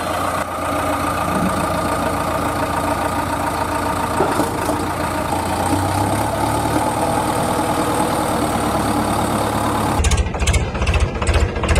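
Engine running steadily at idle; about ten seconds in it changes to a rapid, rough chugging.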